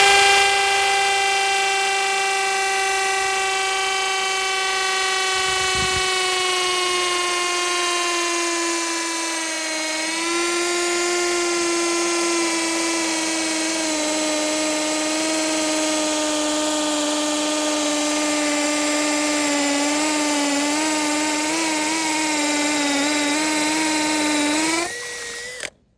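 Akuza K2 cordless drill running under load as a 10 mm bit drills into ceramic tile. A steady motor whine that slowly sags in pitch, dips once around ten seconds in, and stops about a second before the end.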